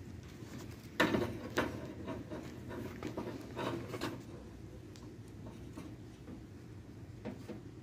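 A wrench working the brass service valve on a Carrier split-type air conditioner's outdoor unit, with a few short breathy bursts over a low steady hum.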